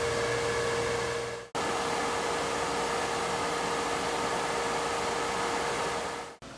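Snap-On PBC58 automatic pressure wash cabinet running a wash cycle: a steady hiss of water spraying inside the closed cabinet over a steady pump hum. It cuts out for a moment about one and a half seconds in and again near the end.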